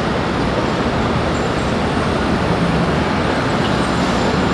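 Steady rumble of city traffic and engines, with no distinct events.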